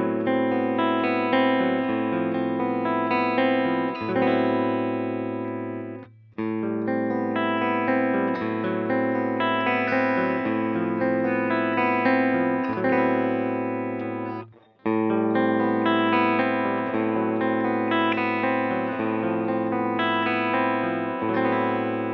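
Electric guitar, a Fender Stratocaster-style instrument, picked through an amplifier, playing a phrase that breaks off briefly twice, about six and about fifteen seconds in. The takes demonstrate the pickup selector's positions: the middle pickup, then middle plus bridge, then the bridge pickup.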